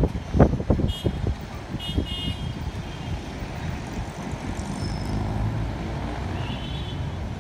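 Steady city traffic rumble, with wind buffeting the microphone in the first second or so. Short high-pitched toots sound about one and two seconds in and again near the end.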